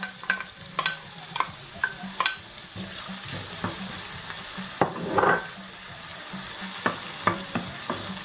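Finely chopped onion sizzling in hot butter and olive oil in a stainless steel pan. A wooden spoon and the bowl give short sharp knocks and scrapes against the pan as the onion is tipped in and stirred. The sizzle grows louder about three seconds in.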